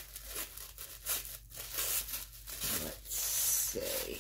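Purple paper wrapping crinkling and tearing as a small beeswax candle is unwrapped by hand. It comes as a series of short rustles, loudest about three seconds in.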